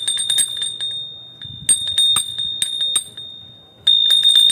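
A small metal bell rung rapidly in three bursts, each made of many quick strikes over a single high ringing tone, to call the household out to the gate.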